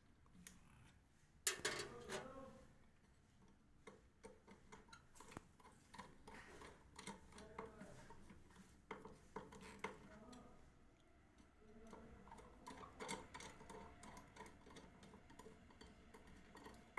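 Faint, irregular clicks and small metallic ticks of a screwdriver and fingers working a wire into the brass terminal of a fuse cut-out, with a louder clatter about a second and a half in.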